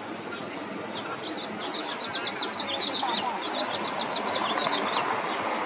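A small bird chirping in a quick run of short, high notes lasting about four seconds, over a steady murmur of crowd chatter.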